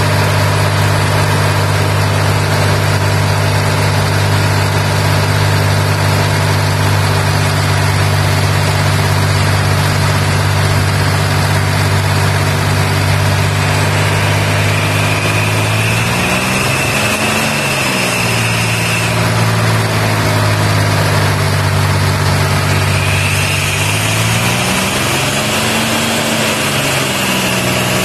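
Old Ingersoll-Rand screw air compressor's two-stroke drive engine running steadily. Its speed rises and falls back twice, in the second half, with a high whine coming in alongside.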